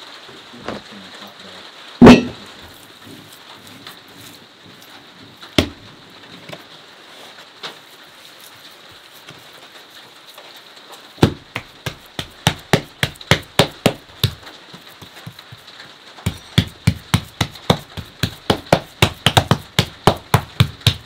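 Hands slapping and patting a lump of wet clay-and-straw cob flat on a wooden board: quick repeated slaps of about three a second through the second half, with a short pause in the middle. A single heavier thud about two seconds in.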